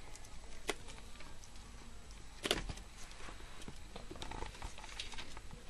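Kittens scrabbling at plastic DVD cases and a wire media rack: scattered light taps and scratches, with one louder knock about two and a half seconds in.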